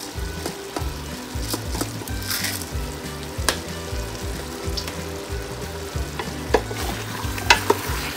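Chicken pieces sizzling in a stainless steel pot as a wooden spoon stirs them, with scraping and a few sharp knocks of the spoon against the pot, the loudest near the end.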